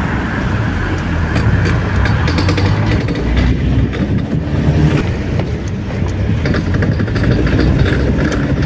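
Renault Kangoo 1.9 diesel engine running under acceleration through a turn, with a rapid run of metallic clicks and crunching from about halfway through. The crunching is the typical sound of a worn-out front CV (constant-velocity) joint, ruined by a torn boot letting in water and dirt.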